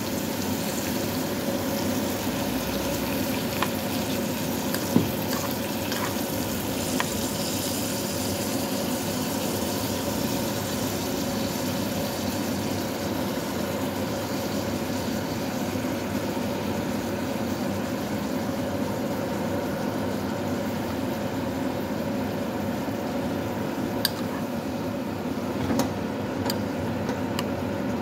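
Sausage, onion and pepper in tomato sauce sizzling steadily in a pot on the stove. A spoon clicks against the pot a few times, most sharply about five seconds in.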